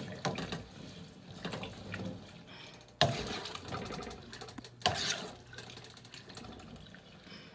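Rice being added to a pot of vegetable soup and stirred in: liquid sloshing and splashing, with two sudden louder sounds about three and five seconds in.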